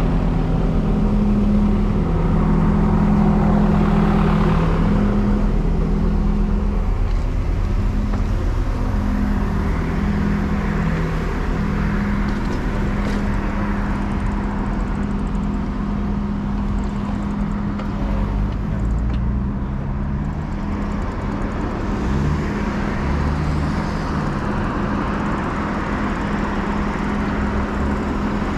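City road traffic: car engines and tyres passing in a steady low rumble, with an engine tone rising and falling about two-thirds of the way through.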